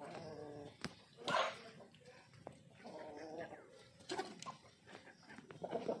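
A series of short animal calls, about one a second, with a louder, harsher one about a second in.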